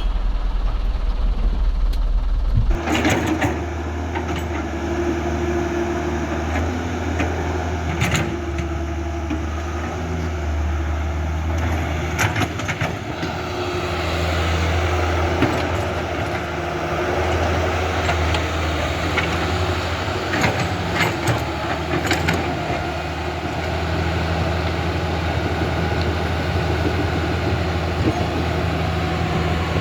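Remote-control excavator and bulldozer models working: a steady engine-like rumble with a low hum that shifts about three seconds in, and scattered clicks and knocks.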